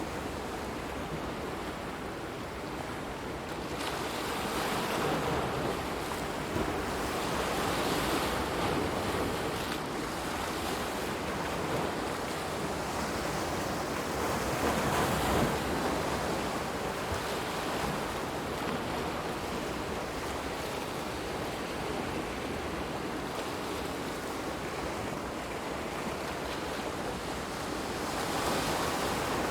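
Waves washing onto a shore: a continuous rush of surf that swells louder several times, around 5 to 8 seconds in, about halfway and again near the end.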